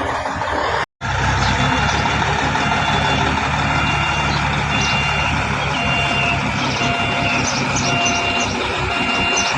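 Heavy truck's diesel engine running steadily, with a reversing alarm beeping about once a second through the second half.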